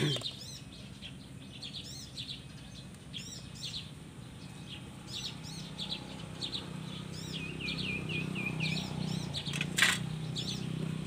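Small birds chirping repeatedly, with a run of quick falling chirps late on. A low hum builds from about six seconds, and there is a single sharp click near the end.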